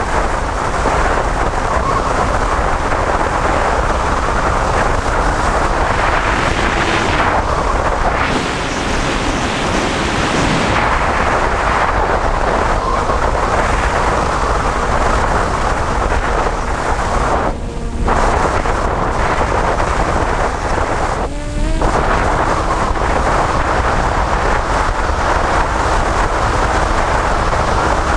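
Heavy wind rushing over the microphone of a camera riding on a model aircraft in fast, low flight, with a faint motor hum underneath. The rush briefly drops twice in the second half.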